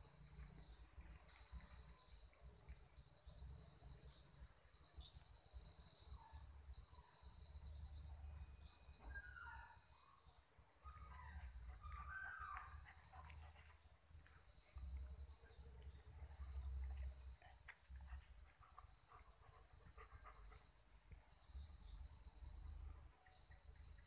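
Night insect chorus: a steady high-pitched buzz with repeated rapid chirping trains from crickets layered on top. A few short calls come through about halfway in, and a low rumble runs underneath.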